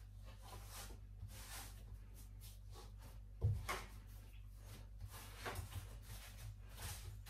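Bread dough being kneaded by hand on a silicone baking mat: soft, repeated pressing and rubbing strokes, with one louder thump about three and a half seconds in.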